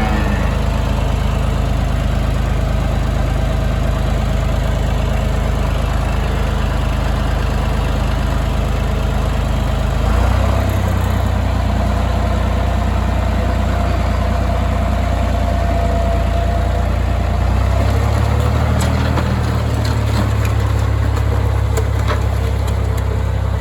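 A vehicle engine idling steadily with a low drone. Its pitch shifts about ten seconds in and again near eighteen seconds.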